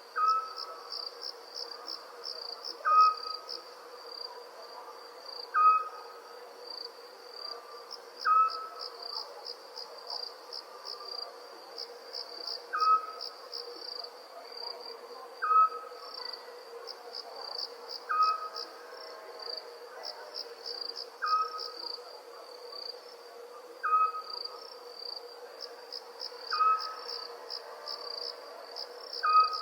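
Crickets chirping in a continuous high, pulsing trill. Over it, a short owl call repeats at a steady pace, about once every two and a half to three seconds.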